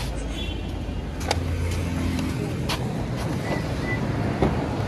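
A few taps of footsteps on brick paving over a steady low traffic rumble, then a sharp click near the end as a car's outside door handle is pulled and the door unlatches.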